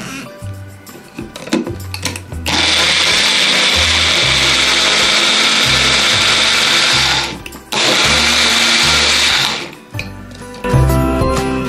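Magic Bullet personal blender's 250-watt motor base running as the cup is pressed down, blending fruit and water into a smoothie. There is one run of about five seconds, a brief break, then a second run of about two seconds.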